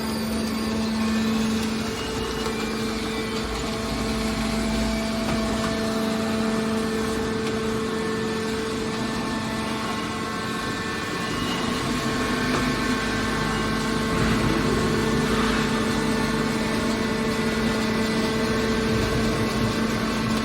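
Hydraulic press baler for aluminium cans running, its motor and pump giving a steady hum with a noisy mechanical bed. The hum grows a little louder about two-thirds of the way through.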